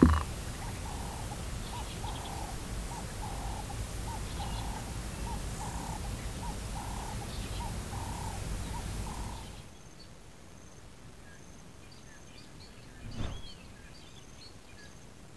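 A bird repeating a short clear note about one and a half times a second over a steady outdoor hiss. About two-thirds of the way through, the sound cuts to a quieter bush ambience with faint high chirps and one louder short call near the end. A brief knock at the very start.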